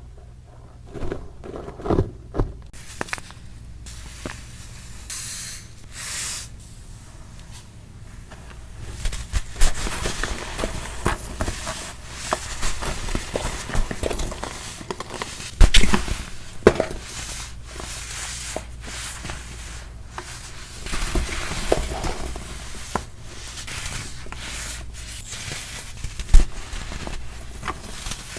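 Compressed baking soda crunching and crackling as it is crushed. It starts as scattered snaps and becomes dense, continuous crunching about a third of the way in, with a few sharp, louder cracks, the loudest near the middle and near the end.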